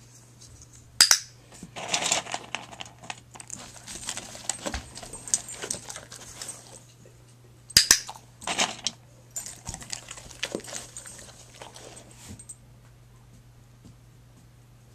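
A dog nosing and pushing a small pink bucket around a wooden floor: two sharp knocks of the bucket, about one second in and again near eight seconds, each followed by several seconds of scraping and rustling.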